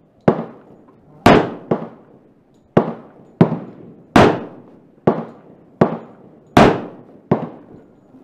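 10mm pistol (a Glock 30 with a Storm Lake 10mm conversion barrel) firing a string of about ten shots in roughly seven seconds, each a sharp crack with a short echo. The shots are spaced unevenly, some fainter than others.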